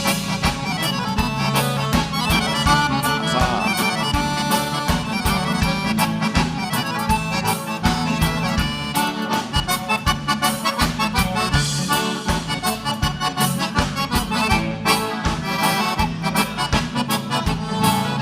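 Gaúcho dance music played live: an accordion carries an instrumental passage over the band's steady dance beat.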